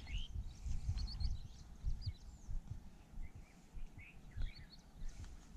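Small birds chirping and calling with short rising and falling notes, over irregular low rumbles and thumps of wind and handling on the microphone.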